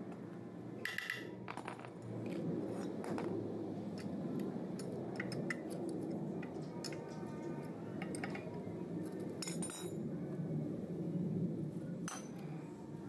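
Tools and small metal parts clinking and tapping during water-pump repair work: scattered light clinks, some in quick little clusters, over a steady low hum.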